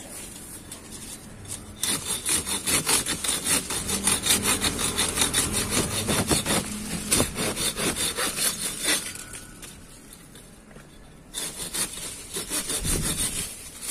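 Folding pruning hand saw (DLEWREOX 180 mm) cutting through a branch with quick back-and-forth strokes. It stops about nine seconds in and starts sawing again a couple of seconds later.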